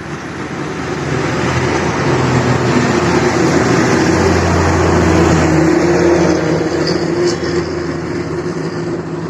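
Motorcycle engine running while being ridden, a steady low hum under a loud rushing noise that builds over the first couple of seconds and then holds steady.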